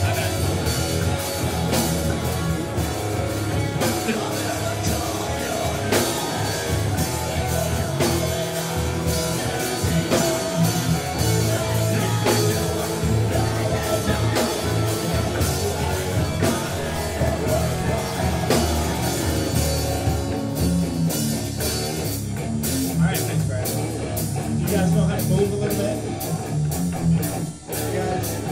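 Metal band playing live: electric guitars through amplifiers, bass and a drum kit. About twenty seconds in the texture thins to guitars over evenly spaced drum hits, and the sound drops out for a moment near the end.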